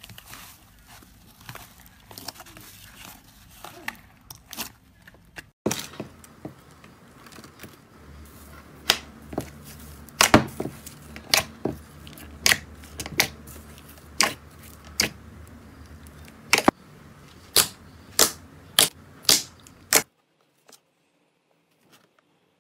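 Hands kneading and squeezing slime: soft sticky rustling with many small crackles, then louder sharp wet pops and clicks, about one or two a second, as the slime is pressed. The sound cuts off suddenly near the end.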